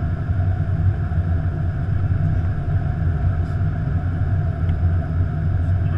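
Steady rumble of airflow and engines inside the flight deck of an Airbus A330-200 on final approach.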